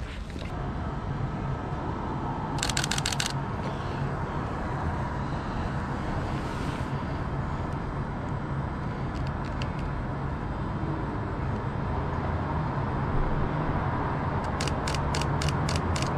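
Steady outdoor city background noise. Over it, a DSLR shutter fires in bursts: a quick run of about six clicks about three seconds in, and a slower run of about seven clicks, roughly four a second, near the end.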